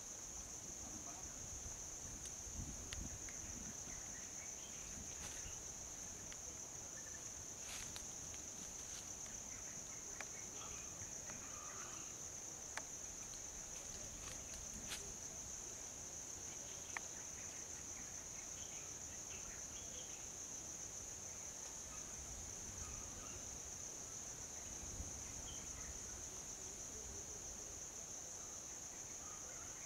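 Insects droning in the forest in one steady high-pitched note, faint, with a few scattered faint ticks and snaps.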